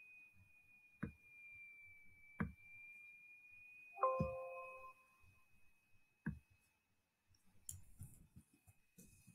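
Single computer mouse clicks, then a short Windows dialog chime about four seconds in, then light keyboard keystrokes near the end. A faint steady high-pitched whine runs underneath.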